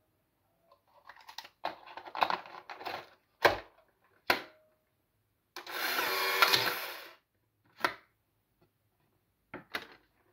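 Polaroid One600 instant camera being loaded: plastic rattling and clicks as the film pack goes in, a sharp snap as the film door shuts, then the camera's motor whirring for about a second and a half as it ejects the film pack's dark slide. A few single clicks follow near the end.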